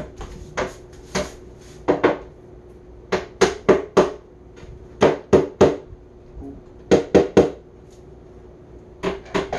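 Hammer tapping on a particleboard furniture part during flat-pack assembly, in quick runs of two to five blows with short pauses between.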